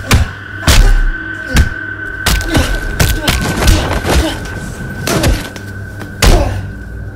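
Music with a steady held high note under a string of sharp thuds and hits from a staged fight, about a dozen of them, the loudest near the start and again about six seconds in.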